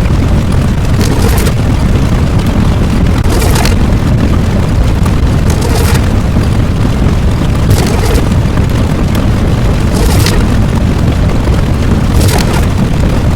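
Explosion sound effects: a loud continuous booming rumble with a sharper burst about every two seconds.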